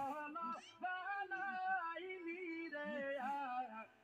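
A man singing unaccompanied in a folk style, long held notes with wavering, ornamented pitch, breaking off briefly just before the end.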